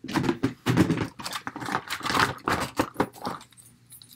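Plastic dolls being handled and pulled from a storage box: a quick run of knocks, clacks and rustles of hard plastic figures and their clothes, dying down in the last second.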